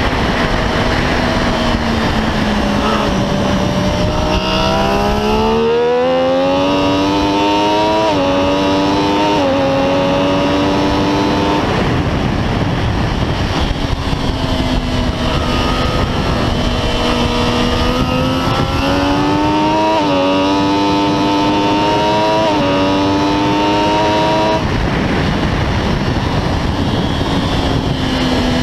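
Triumph Daytona 675R's inline three-cylinder engine at racing speed, heard from the bike under heavy wind noise. Its pitch falls as the bike slows for corners, then climbs twice in a run of upshifts, dropping a little at each gear change.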